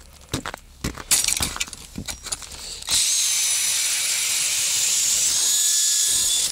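Electric drill-driven ice auger boring through pond ice: from about three seconds in, a steady whine of the motor over the hiss of the blades shaving ice, cutting off suddenly at the end. Before it starts there are a few scattered knocks and scrapes.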